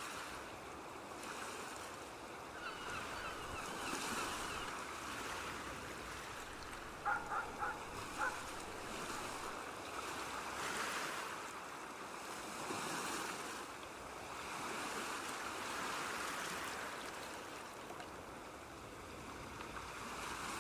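Waves washing on a sea shore, a steady surf hiss that swells and ebbs every few seconds. A bird gives four short calls about seven seconds in, the loudest sounds here.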